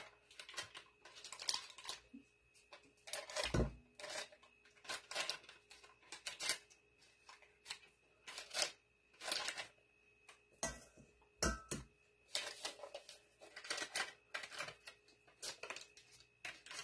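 A paper butter wrapper crinkling and rustling in irregular short bursts as soft butter is squeezed and scraped out of it into a stainless steel bowl. A few soft knocks against the bowl come in among them.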